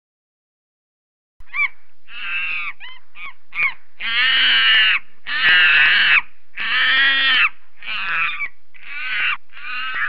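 A run of about ten loud animal calls, each a pitched cry with rich overtones, starting about a second and a half in. The first few are short, and the longest and loudest come in the middle.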